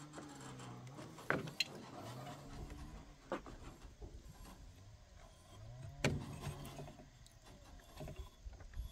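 Mechanical sounds from the rigging of a large lake lift net being hauled: a low whine that rises in pitch and holds, in short spells, with several sharp knocks and clacks.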